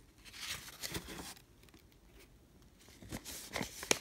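Hands handling a cardboard box and a kraft-paper-wrapped package: scattered short rustles and light knocks, a quiet stretch in the middle, and a sharper knock just before the end.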